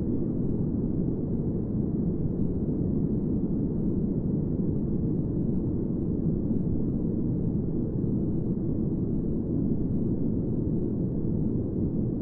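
Steady, deep and muffled noise track, a rumbling hiss with the treble cut away, unchanging throughout.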